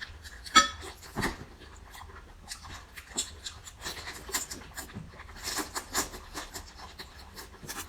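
Close-up eating sounds: irregular wet mouth clicks, smacks and crunching while chewing seafood. A sharp squeaky click comes about half a second in, and a louder thud just after a second.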